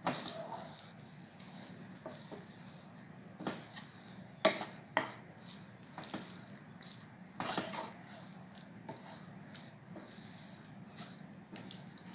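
Flat spatula stirring green chillies in a non-stick frying pan: irregular scrapes and knocks against the pan, a few louder about four to five seconds in and again near eight seconds.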